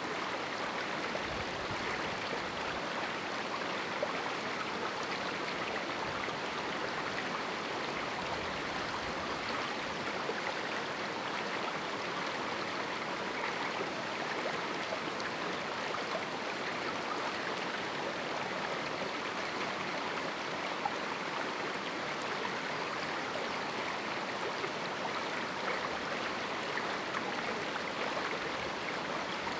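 A river in a small canyon flowing steadily over rocks: an even rushing of water with small splashes and gurgles.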